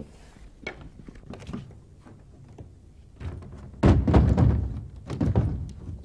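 Heavy thuds of a wooden door being handled, the loudest about four seconds in and another a little over a second later.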